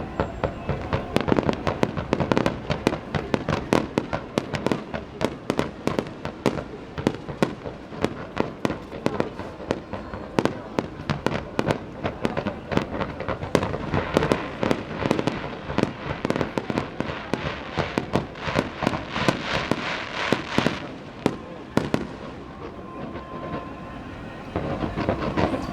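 Aerial fireworks bursting in rapid volleys, many bangs a second with crackle between them. There is a spell of dense crackling about three-quarters of the way through, then a brief easing before the bangs pick up again at the very end.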